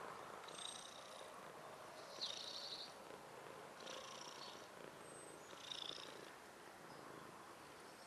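A domestic cat purring softly and steadily while dozing. Short faint high chirps come in about every second and a half.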